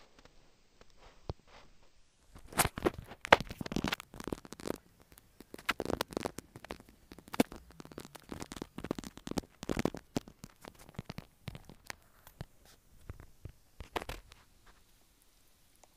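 Irregular, rapid taps and clicks of fingers typing on a smartphone touchscreen, coming in clusters and dying away near the end.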